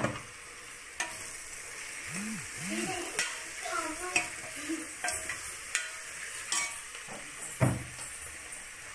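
Mushrooms and masala sizzling in an open pressure cooker while being stirred with a steel ladle. The ladle scrapes and knocks against the pot several times, with one louder clank near the end.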